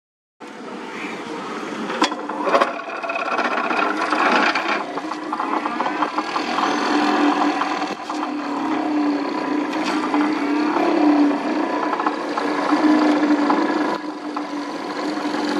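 Excavator-mounted vibratory hammer shaking a steel sheet pile into the ground: a steady buzzing hum with metallic rattling and a few clanks. It cuts in after a brief silence right at the start.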